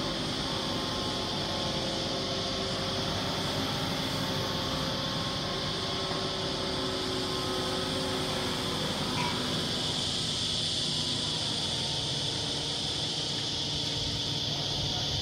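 Liebherr mobile crane's engine and hydraulics running steadily while it holds and swings a prefabricated wall panel; the steady tones of the engine fade about nine seconds in. A constant high buzz runs over it throughout.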